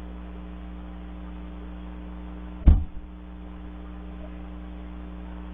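Steady electrical hum, with a single heavy thump about two and a half seconds in.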